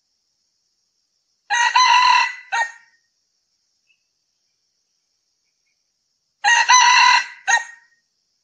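Male red junglefowl crowing twice, about five seconds apart. Each crow is a short, clipped phrase followed by a brief separate final note.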